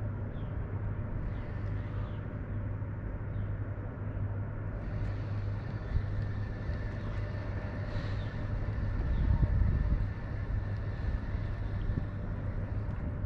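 A steady, low engine drone from a distant motor, swelling somewhat around the middle, with a few faint bird chirps in the first few seconds.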